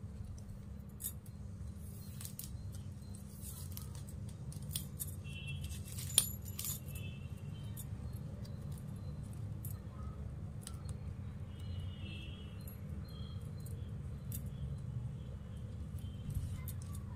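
Plastic craft wire strands rustling and clicking as they are pulled through and knotted by hand, with metal bangles jingling now and then. One sharp click about six seconds in is the loudest sound, over a steady low hum.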